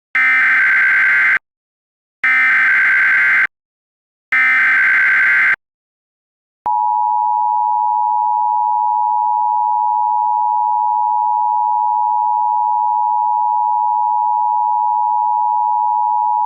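Emergency Alert System tones: three short bursts of screeching SAME header data, each about a second long, then the steady two-tone attention signal held for about ten seconds, opening a tornado warning.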